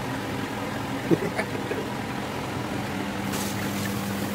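Battered cod and chips deep-frying in a pan of hot oil, sizzling and bubbling over a steady low hum, with the hiss getting brighter a little past three seconds in. A short knock about a second in.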